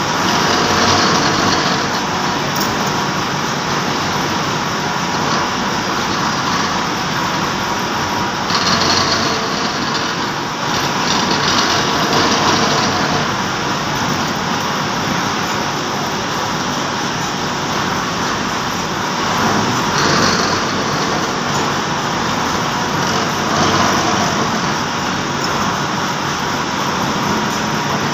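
Gear hobbing machine running, its hob cutting the teeth of a large worm wheel: a steady mechanical noise that swells louder and brighter now and then.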